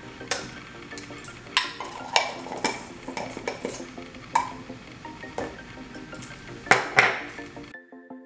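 Sharp clicks and taps of cosmetic containers being handled, irregular, with the two loudest close together near the end. An electronic music track with a steady beat cuts in during the last half second.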